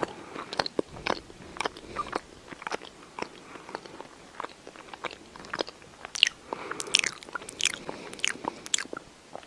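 A cat grooming itself close to the microphone: irregular wet licking and nibbling clicks at its fur and paw, a little busier in the second half.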